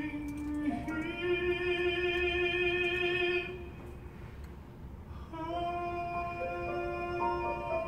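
A male tenor voice singing slow, long-held notes through a microphone, with a softer dip about halfway before the next sustained note.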